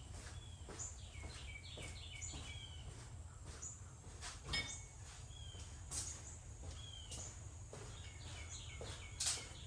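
Faint birds chirping repeatedly over a low steady background hum, with a few light clicks and knocks.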